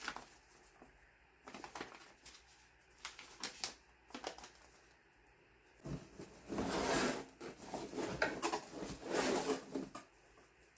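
A cardboard box being opened and its packed contents handled: scattered taps and clicks, then two longer stretches of rustling and scraping, about six and nine seconds in.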